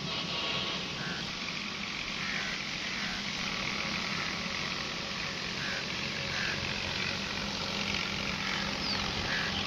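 Steady outdoor background noise: an even hiss with a faint low hum underneath, and a few faint short chirps now and then.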